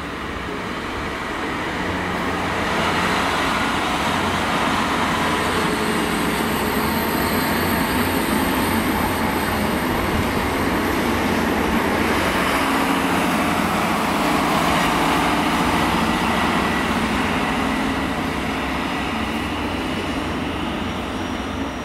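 Class 769 bi-mode multiple unit passing through the station, its engine and wheels on the rails making a steady, loud running noise. The noise builds over the first couple of seconds as the train draws near, holds, and eases slightly near the end as it moves away.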